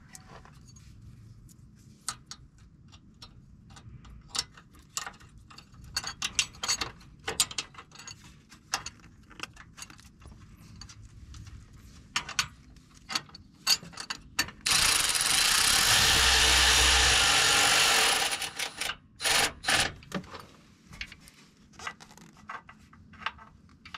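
Irregular metal clicks and clinks of hand tools and a steel shock-mount bracket being worked into place. About fifteen seconds in, a loud steady rushing noise runs for about three and a half seconds, then the clicks resume.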